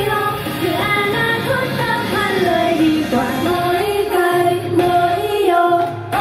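Idol-pop song played at double speed, with female voices singing a quick, high melody over the backing track. The music breaks off briefly near the end.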